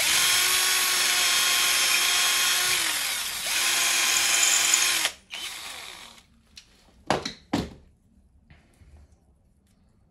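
Power drill boring into the wall to deepen a screw hole that was drilled too shallow: a steady whine for about three seconds, a brief slowdown, then a second run of about a second and a half that cuts off. Two sharp knocks follow a couple of seconds later.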